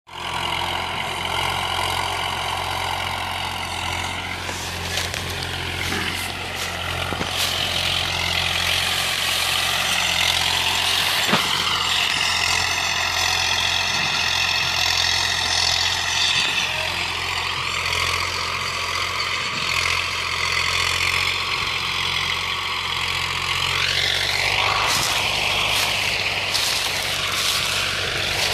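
Swaraj 477 diesel tractor engine working with a loaded sugarcane trailer, running steadily with its pitch slowly rising and falling as the revs change.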